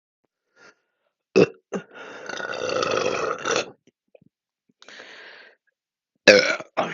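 A woman burping repeatedly after chugging a canned carbonated drink. A short burp comes about a second and a half in, then one long drawn-out burp of nearly two seconds, and two short loud ones near the end.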